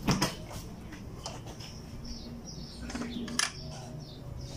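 Birds chirping faintly in the background, with two sharp clicks, one right at the start and one about three and a half seconds in.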